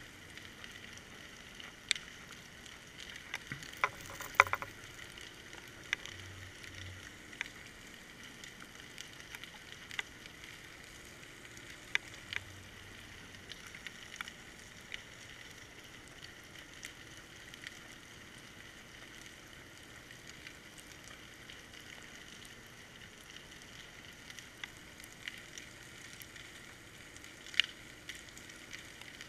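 Underwater ambience heard through a GoPro's waterproof housing: a steady muffled hiss with scattered sharp clicks and knocks, a cluster of them about four seconds in and a loud click near the end.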